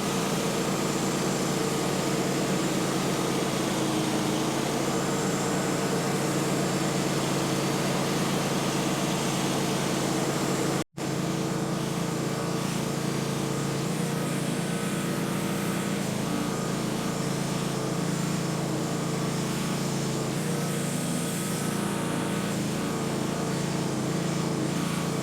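A sawmill's engine running steadily as the saw cuts boards from a pine log.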